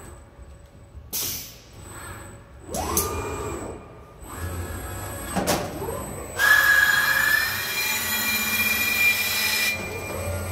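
A metal part ground against a spinning abrasive wheel: a steady high screech with a hiss, starting about six seconds in and lasting about three seconds. Earlier, about three seconds in, a motor whines up in pitch and holds as the machinery moves.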